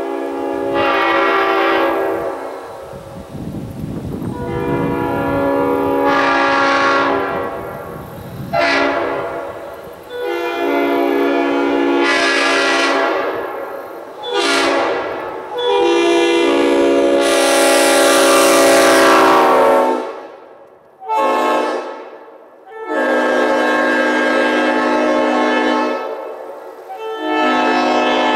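Leslie SuperTyfon RS5TRF five-chime locomotive air horn sounding a series of long and short blasts, a steady chord on each, with a low rumble under the second blast.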